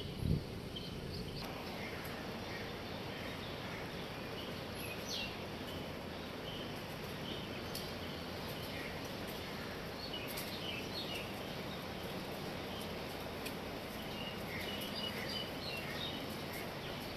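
Steady background noise with scattered short, high bird chirps, and a brief low thump just after the start.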